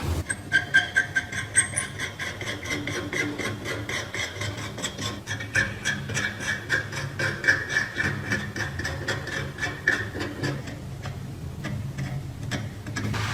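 A small machine running steadily, ticking about four times a second over a low hum; the ticking fades somewhat near the end.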